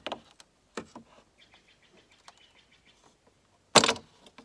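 Screwdriver prying at the plastic chrome grille trim on an R53 Mini Cooper S bumper: a small click about a second in and a loud plastic crack near the end. Faint bird chirps in between.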